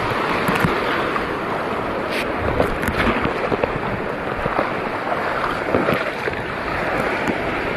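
Seawater sloshing and splashing with small irregular crackles, over steady wind noise on the microphone.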